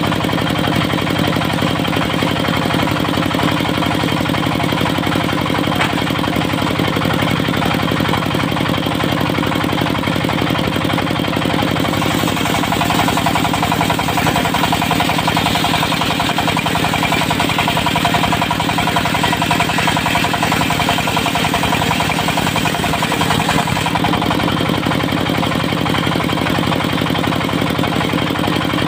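Diesel engine of a circular sawmill running steadily, driving the saw blade. From about twelve seconds in until about twenty-four seconds in, the blade is cutting through teak, which adds a brighter, hissing sawing sound over the engine.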